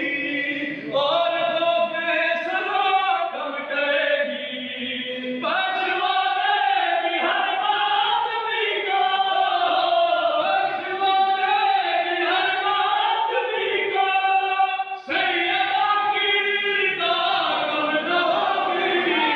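Men's voices chanting a devotional recitation into an amplified microphone, a lead singer holding long, wavering notes with others joining in. The sound breaks off abruptly for a moment about three-quarters of the way through, then resumes.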